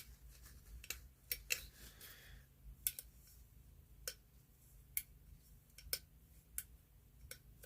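A vintage flashlight's slide switch clicking on and off again and again, about once a second, with sharp, faint clicks. The switch has just been oiled and now works freely.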